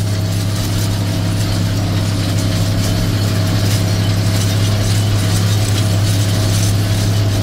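Tractor engine running steadily under load while pulling a spring-tine cultivator over frozen ground, heard from inside the cab: a constant deep drone with a thin steady whine above it and a mechanical rattle throughout.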